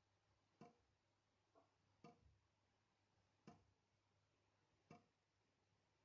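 A dripping tap: single water drops falling and plinking, faint, one about every second and a half, with a couple of softer drops in between.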